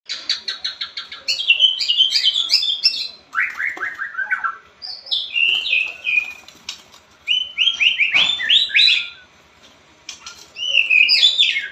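White-rumped shama (murai batu) singing a loud, varied song of fast whistled phrases, opening with a rapid string of short notes, with a brief pause a little after nine seconds.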